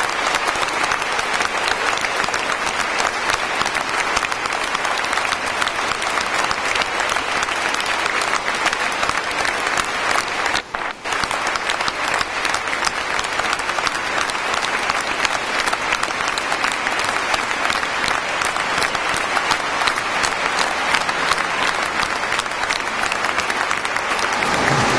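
A large crowd applauding at length, a dense continuous clapping with a momentary gap about eleven seconds in.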